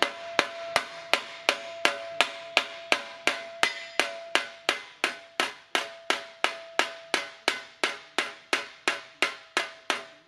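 Ball-peen hammer striking sheet steel held over the edge of an anvil, a steady rhythm of about three blows a second, each with a short metallic ring at the same pitch. The blows drive a bead into a car fender panel, forming its curve piece by piece.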